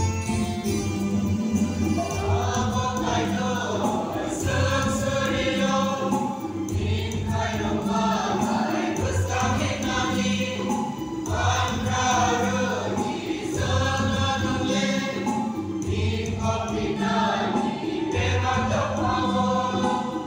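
Mixed choir of young women and men singing a gospel song together into microphones over a PA, over steady low sustained accompaniment notes.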